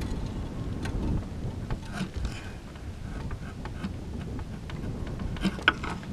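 Wind buffeting the microphone as a steady low rumble, with a few short scrapes and clicks from a wood chisel paring wood.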